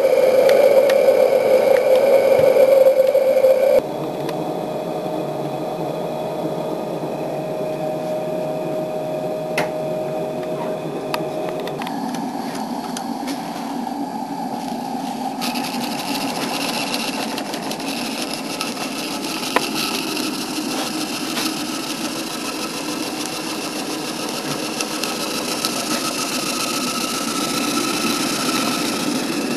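1-inch scale Burrell live steam model traction engine running, its single-cylinder steam engine working steadily. The sound changes abruptly a few times, about 4, 12 and 15 seconds in.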